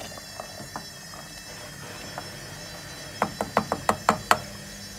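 Wooden spoon knocked about eight times in quick succession against the rim of an aluminium cooking pot, about three seconds in, over a steady background hum.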